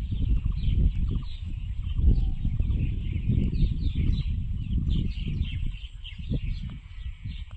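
Many birds chirping in quick, overlapping short calls over a heavy, uneven low rumble.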